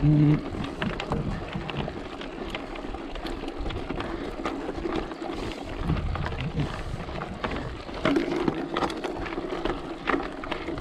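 A vehicle moving slowly over a rough dirt track, with a steady low rumble and scattered knocks and crunches from stones under it.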